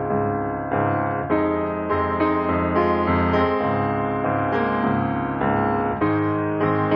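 Background piano music, with notes struck at a slow pace and left ringing.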